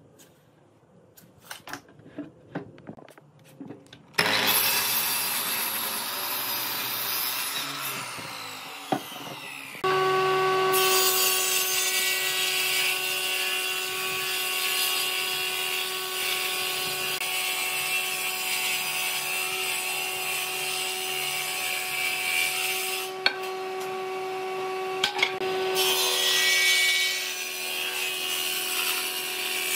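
A few handling clicks, then from about four seconds a power saw cutting through a pine board. From about ten seconds a combination jointer-planer runs with a steady motor hum and the rushing noise of its cutterhead planing the pine, with brief dips as the board is fed.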